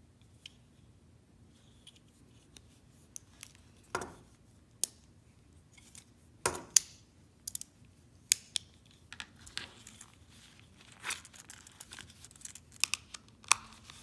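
Irregular metal clicks and short scrapes of a Leatherman ReBar multi-tool being handled and its tools folded shut, loudest about halfway through, with handling of its leather pouch near the end.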